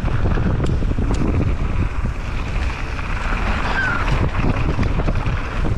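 Wind buffeting the microphone and knobby tyres running over a dirt trail as a mountain bike descends at speed, with scattered clicks and knocks from the bike over the bumps and a brief squeak about four seconds in.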